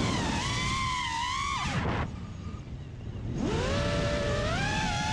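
FPV racing quadcopter's brushless motors (Brotherhobby Speed Shield 2207.5 2400KV) and three-blade props whining as the throttle moves. The pitch climbs and holds, drops sharply about two seconds in and stays low and quieter, then climbs again near the end.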